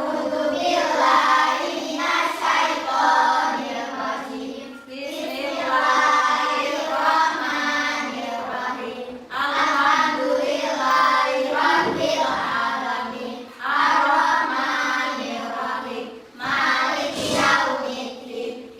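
A class of children recite a prayer aloud in unison in a sing-song chant. It comes in phrases a few seconds long, with short breaks between them.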